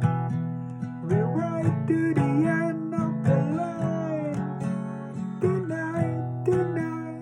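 Acoustic guitar strummed in a steady rhythm, with a melody line sliding up and down in pitch over the chords.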